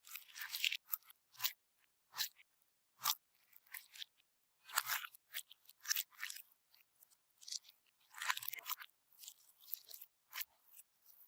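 Bead-filled slime being mixed, giving irregular crunchy crackles in short bursts every half second to a second.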